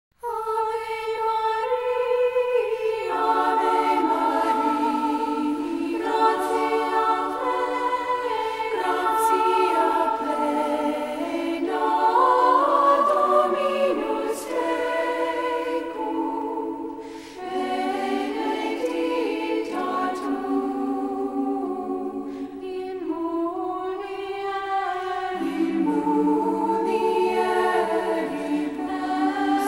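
Choir singing slow, long-held notes in several voice parts.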